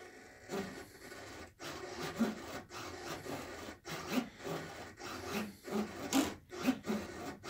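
Savox servo driving the model Spitfire's elevator through its carbon pushrod, whirring in short bursts a second or so apart as the transmitter stick is worked back and forth. The elevator moves freely with no binding.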